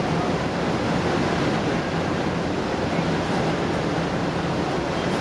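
Manila MRT Line 3 train running, heard from inside the car: a steady rumble and hiss of wheels on rail with a low hum underneath.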